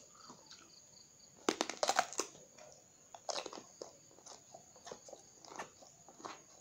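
Mouth biting into a raw round green eggplant: a loud cluster of crunches about one and a half seconds in, then chewing with scattered crunches.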